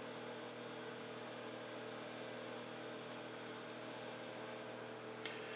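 A steady electrical hum in a quiet room, with one faint click near the end.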